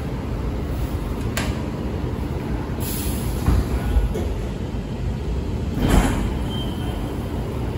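Metro train cabin noise: a steady low rumble with a sharp click about a second and a half in, a short air hiss around three seconds and a louder noisy swell near six seconds.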